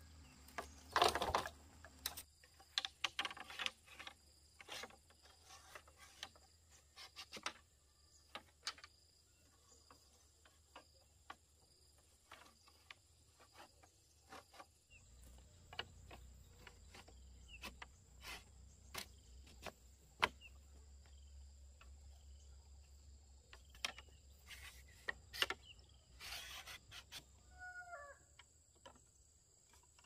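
Thin split-bamboo strips clicking and knocking against each other and against bamboo poles as they are laid out and woven into a wall panel, in irregular taps with a louder clatter about a second in.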